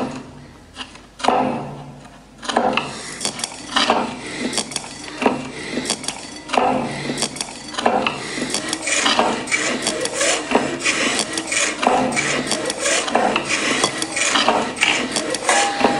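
Rasping, scraping strokes, like a file or rasp worked over wood, in a dense irregular run over a low pulse that comes about every second and a half. It is sparser for the first two seconds or so, then grows busier and louder.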